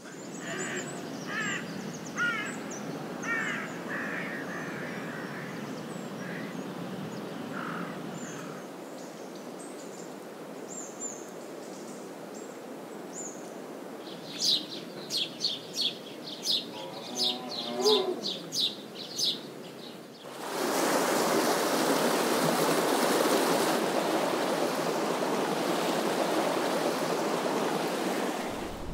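Outdoor nature ambience: birds chirping over a steady background hiss, with a run of about nine sharp, high-pitched calls in the middle. About two-thirds of the way in it cuts to a loud, steady rushing noise.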